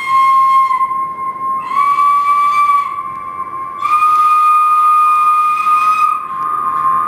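Small cane flute played into a microphone: long held high notes that step up slightly in pitch twice. Beneath them runs a continuous steady tone at about the same pitch.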